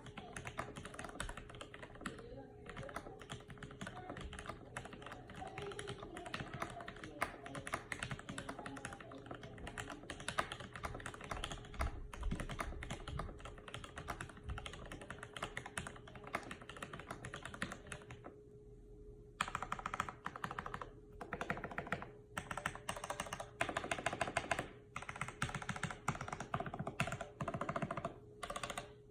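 Typing on a Graystudio HB-85 mechanical keyboard with Tealio v2 linear switches and GMK WoB keycaps: a fast, continuous stream of key strokes. About two-thirds of the way through the typing stops for about a second, then comes back in bursts broken by short pauses.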